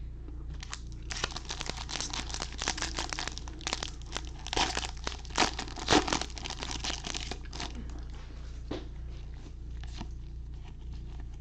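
Foil trading-card pack wrapper being torn open and crinkled, a dense crackling with sharp snaps for about seven seconds, loudest near the middle, then a few light ticks.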